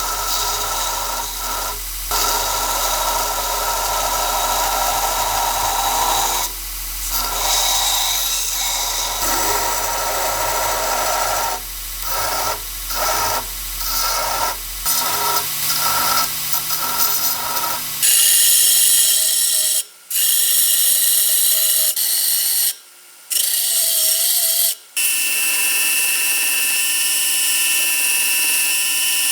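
Power tool grinding rail steel, in several clips joined by abrupt cuts, with its pitch and character changing about halfway through.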